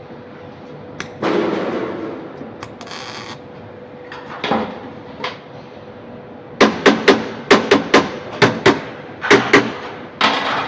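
Hammer blows on sheet metal: a dozen or so sharp strikes in quick runs over the last four seconds, over a steady workshop hum, with a short scraping noise about a second in.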